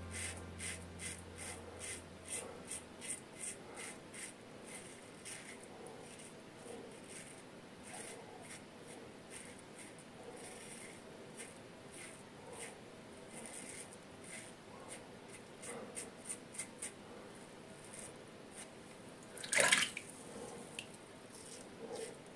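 Yaqi Excalibur safety razor with a Feather Pro Guard blade, used about a dozen times, scraping through lathered stubble. It makes short rasping strokes, two to three a second at first, then sparser. A brief, louder noise comes about twenty seconds in.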